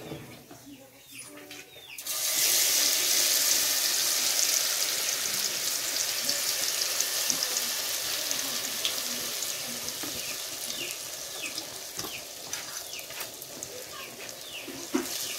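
Spoonful of rice-flake batter dropped into hot frying fat: a sudden loud sizzle starts about two seconds in and slowly dies down as the fritter fries.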